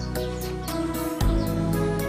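Soft background music with sustained chords over a steady light beat of about four ticks a second; the chord changes a little past a second in.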